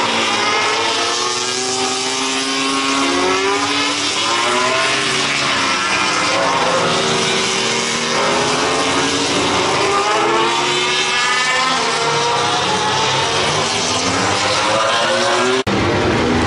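Racing motorcycles running at speed past the trackside, several engines overlapping, their pitch rising and falling as they come and go and rev through the corner.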